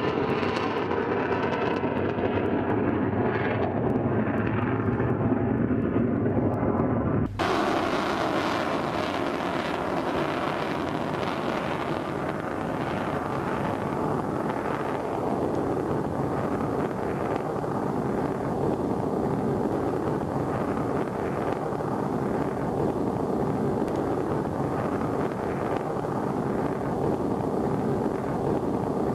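Rocket motor of a Shahab-3 ballistic missile running during its climb after launch, a continuous roar. About seven seconds in it cuts to a steady, even rushing noise of the missile in flight, heard from a camera mounted on its body.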